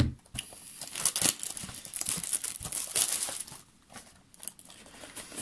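Thin plastic packaging crinkling and tearing as a Funko mystery mini is unwrapped from its clear plastic bag, in a run of crackles with a short lull a little before the end.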